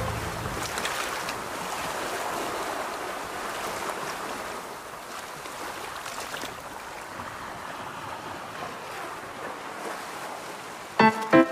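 Steady wash of waves: an even rush that slowly fades. Piano music starts abruptly near the end.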